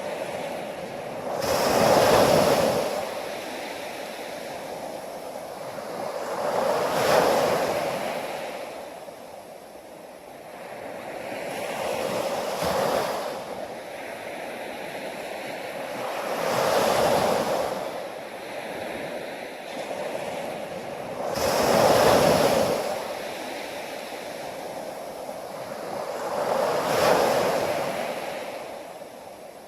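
Ocean surf: six waves break and wash back, one about every five seconds, each swelling up and then falling away.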